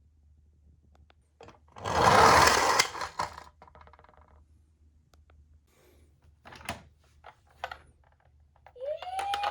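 Clicks and clatter of toy ambulance minicars being handled on cardboard, with a loud rattling rush about two seconds in. Near the end a toy ambulance's electronic siren switches on, its tone rising and then holding steady.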